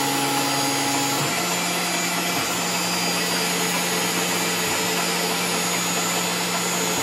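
Tormach PCNC milling machine running a drilling cycle with flood coolant pouring over the work: a steady whirring hiss, with a higher hum that stops about a second in.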